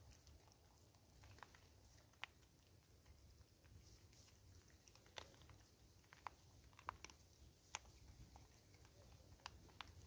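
Faint, scattered sharp clicks and crunches over a low rumble: vervet monkeys picking up and chewing cracked maize kernels on a tree stump.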